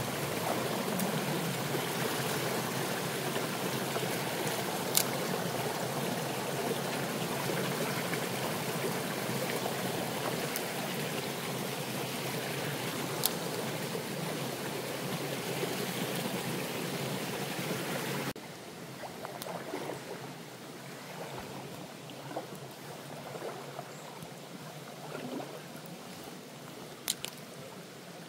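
Small stream running over stones, a steady rushing babble. About two-thirds of the way through it drops suddenly to a quieter, fainter flow, and a few sharp clicks stand out above it.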